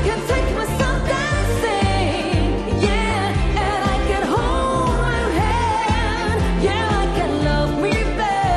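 A woman singing a Vietnamese-language pop song into a handheld microphone over a pop backing with a steady bass beat. Her held notes carry vibrato.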